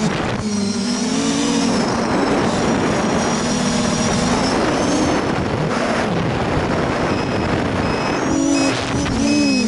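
Quadcopter's Sunnysky 2212 1400Kv brushless motors spinning 8x4.5 propellers, a steady whine over a rushing noise, the pitch swinging up and down with throttle through rolls and low passes.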